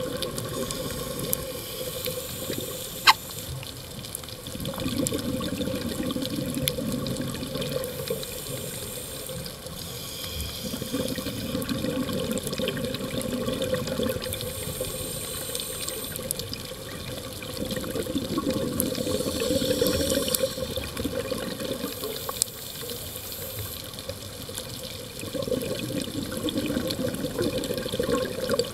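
Scuba diver breathing through a regulator underwater: a hiss on each inhale, then a gurgling rush of exhaled bubbles, in a slow cycle about every seven seconds. A steady hum runs underneath, and there is a sharp click about three seconds in.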